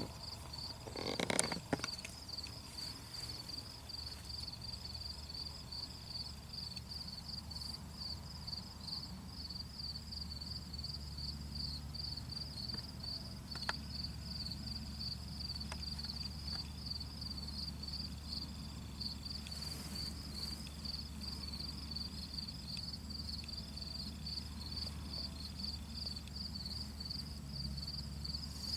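Insects singing in a soybean field: a continuous, rapidly pulsing high-pitched trill, with a low steady rumble underneath.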